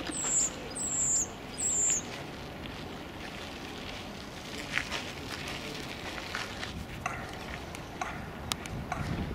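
Birds calling: three short, high chirps that dip in pitch in the first two seconds, then fainter scattered chirps and clicks.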